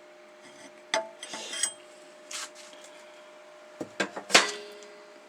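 Metal parts of a car's front suspension strut being handled: a few sharp knocks and clinks with brief scraping, the loudest knock about four seconds in.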